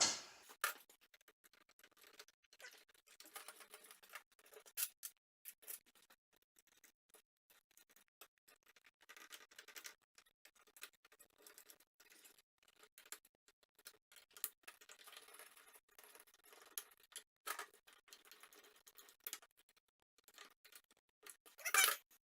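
Faint, scattered clicks and scrapes of small screws, metal parts and a little hand screwdriver being handled while stepper-motor screws are fitted, with a louder clatter near the end.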